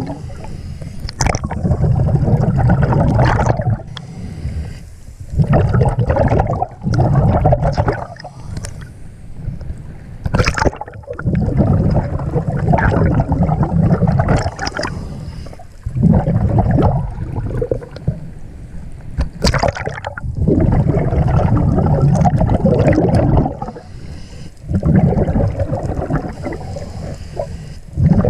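Underwater bubbling from a scuba diver's exhalations through the regulator: rumbling bubble bursts every few seconds with quieter gaps between. Two sharp knocks stand out, one about a third of the way in and one about two thirds of the way in.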